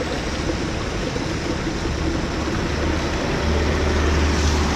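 Traffic on a rain-soaked road: a steady hiss of tyres on the wet surface, with a low engine rumble that builds from about halfway through as a vehicle draws near.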